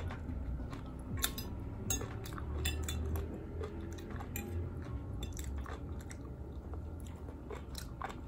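Close-miked chewing of latok (sea grapes), with many short, crisp wet clicks scattered throughout as the small seaweed beads are bitten.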